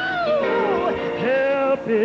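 A woman singing a gospel solo with wide vibrato and sliding, melismatic runs, over sustained instrumental accompaniment.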